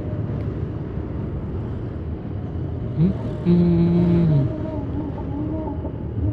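Steady rumble of a vehicle's engine with road and wind noise while riding. From about three seconds in, a man's voice holds a long note that bends down at its end, followed by a wavering hummed or sung tune.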